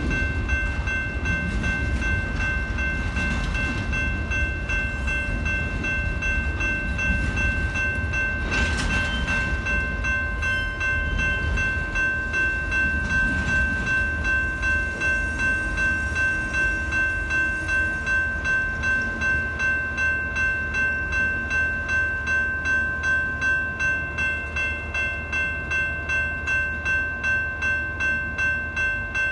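Auto Train enclosed auto carrier cars rolling past with a low rumble, under the steady ringing of a railroad grade-crossing bell. Through the second half the bell's strokes stand out at about two a second.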